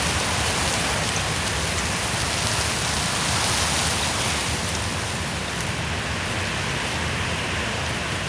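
Steady rain falling on water, an even hiss.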